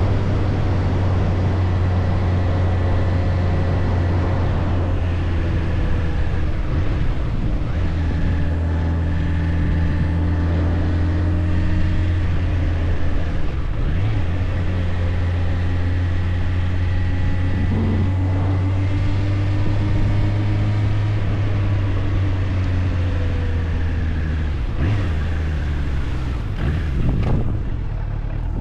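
Suzuki GSF 600 Bandit's inline-four engine running at a steady cruise under way, its note holding even pitch, then wavering and dipping briefly near the end.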